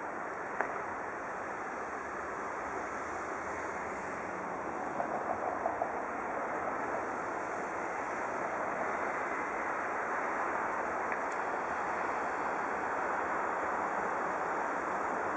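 Bombardier Flexity Classic tram running on its rails: a steady rushing noise that grows slowly louder, with a short run of clicks about five seconds in.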